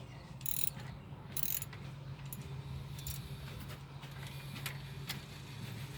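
Ratchet wrench clicking in short runs and a few separate metal clicks as a stubborn bolt is worked loose on the thermostat housing of a 1984 Ford F-250's 4.9 straight-six, over a steady low hum.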